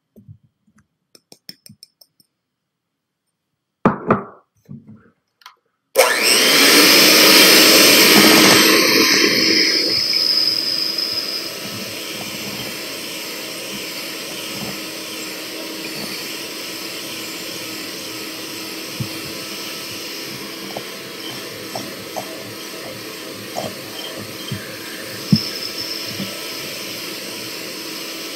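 A few faint taps and a sharp knock, then a handheld electric mixer starts about six seconds in, beating cake batter in a metal bowl: loudest for its first few seconds, then running steadily at a lower level with occasional clicks.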